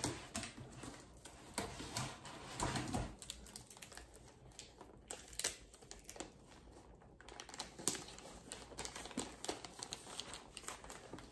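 Scattered light clicks and taps with some rustling, irregular throughout: hands handling a strip of tape and gift wrapping.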